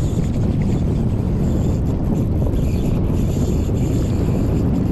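Steady low rumbling of wind buffeting the microphone.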